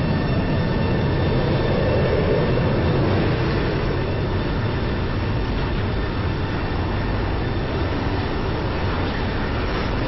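Tornado wind noise: a loud, steady, deep rumble with a hiss over it, unbroken.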